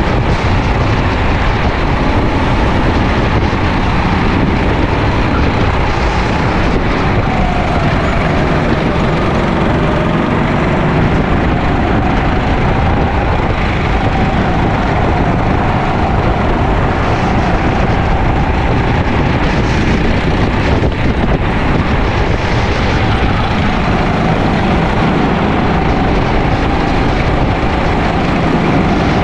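Sodi LR5 rental kart's four-stroke engine running hard on track, its pitch dipping and rising with the throttle through corners and straights, over heavy wind and road noise.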